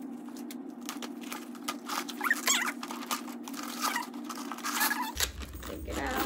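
Protective wrapping rustling and crinkling in irregular bursts as it is pulled off a new handbag. A brief high-pitched wavering squeak comes about two and a half seconds in.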